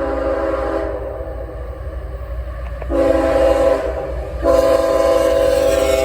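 A CSX freight locomotive's multi-chime air horn sounding over the low rumble of the coal train: a long blast cuts off about a second in, a short blast follows about three seconds in, and a long blast starts about four and a half seconds in, the pattern of a grade-crossing signal.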